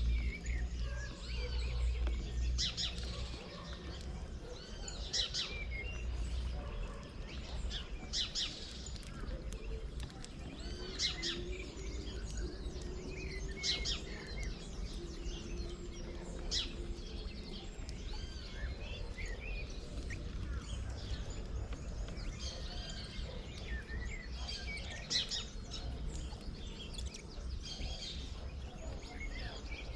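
Several small birds chirping and calling, short high chirps coming irregularly throughout, over a steady low background rumble.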